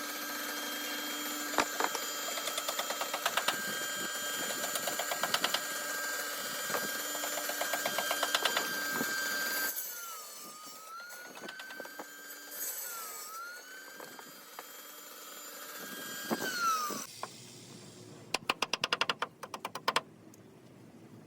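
Electric power tool working wood: a steady motor whine with rhythmic bursts of cutting, its pitch dipping twice under load. The whine falls away when it is switched off, and quick clusters of sharp taps follow near the end.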